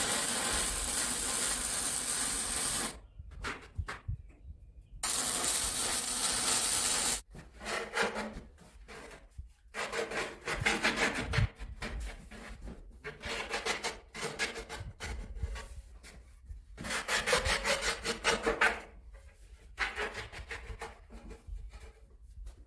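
Two loud, steady hissing bursts, then several bouts of rapid back-and-forth scraping strokes from a hand tool working a surface.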